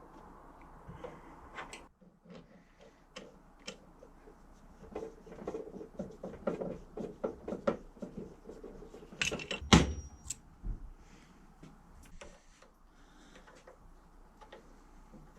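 Workshop handling noises: a run of small clicks, taps and knocks, with one loud knock about ten seconds in.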